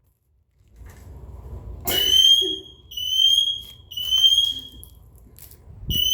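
A sharp crash about two seconds in as a thrown light bulb shatters. A smoke alarm then starts sounding, three long shrill beeps that rise slightly in pitch, a short pause, then the next beep.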